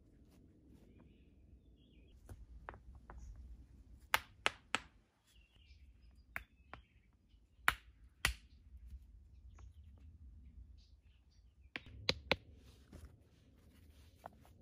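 Stones knocking and clacking against each other as they are set by hand into a dry stone wall: a string of sharp, irregular knocks, with three quick ones about four seconds in, two about eight seconds in and two close together near the end. Faint bird chirps behind.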